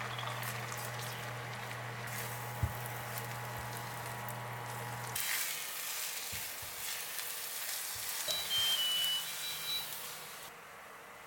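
Food sizzling in a frying pan over a steady low hum that cuts off about five seconds in, followed by a few light knocks and several short high beeps.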